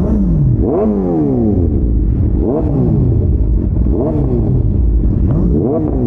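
Superbike engines blipped through loud aftermarket exhausts: the revs jump up sharply and fall back about every second and a half, over a steady low engine rumble.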